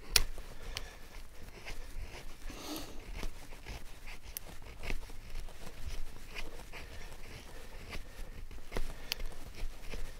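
Steel blade of a Ka-Bar-style Marine fighting knife shaving curls off a dry stick braced on a rock, a series of irregular scraping and cracking strokes of steel on wood. One sharp crack at the very start is the loudest. The shavings are fire-starting material.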